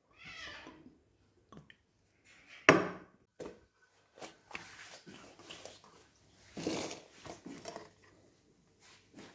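Kitchen handling noises: scattered light knocks and rustles as thin flatbread is handled, with one sharp knock about three seconds in and a longer rustle near seven seconds in.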